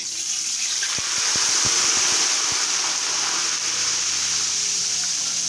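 Water poured from a mug into a hot iron frying pan of fried Dalda ghee and ajwain, hissing and sizzling loudly as it turns to steam, with a run of sharp crackles in the first few seconds.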